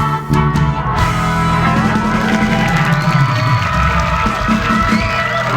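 Rock-style band music with guitar and drums, playing steadily as stage entrance music.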